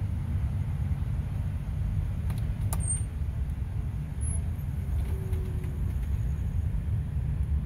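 Low, gusting rumble of wind buffeting the microphone, with one brief click a little under three seconds in.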